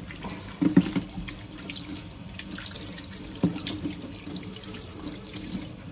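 Kitchen tap running into a stainless steel sink as hands are rinsed and rubbed under the stream, with water splashing off them.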